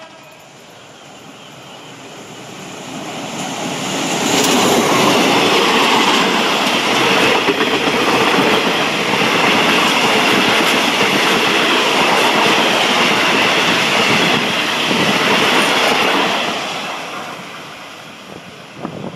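Thai diesel-hauled passenger train passing through a station without stopping. Its wheels and carriages rush past on the rails: the sound builds over the first few seconds, stays loud for about twelve seconds, then fades as the train draws away.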